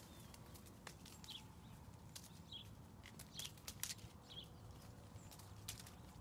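Faint crunching steps through frost-stiffened fallen ginkgo leaves and clover: scattered crisp crackles, with a few short high chirps in between.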